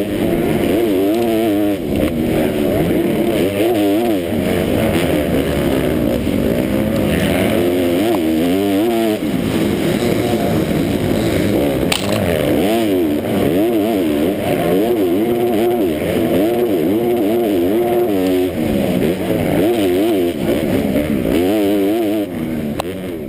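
On-board sound of a 250-class motocross bike's engine at race pace, the revs climbing and dropping over and over through the gears. A single sharp tick about halfway through; the engine sound fades out right at the end.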